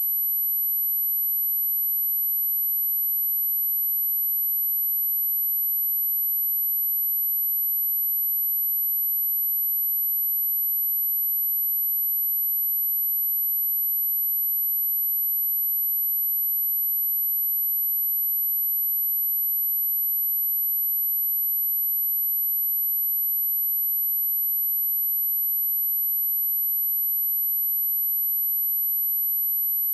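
A pure 11815 Hz sine-wave test tone: a single steady, very high-pitched whine that holds one pitch and level without a break.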